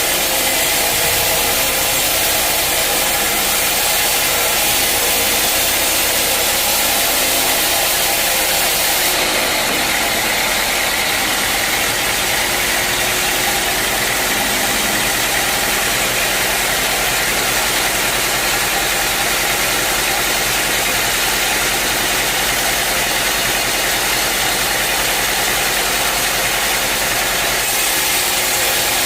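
Sawmill machinery running steadily: an even engine-like drone with a dense hiss, the high hiss easing slightly about nine seconds in.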